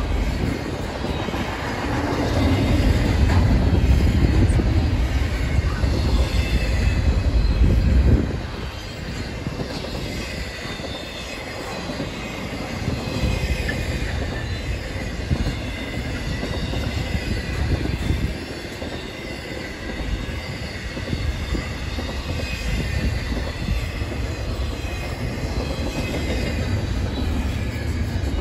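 Double-stack intermodal freight train rolling past close by, steel wheels rumbling on the rails with a faint high wheel squeal running through it.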